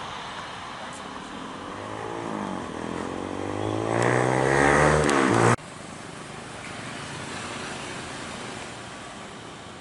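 Garuda Indonesia Boeing 737-800 jet passing overhead, its engine roar growing louder with sweeping tones, cut off suddenly about five and a half seconds in. After that comes a quieter, steady jet rumble from an airliner on the runway.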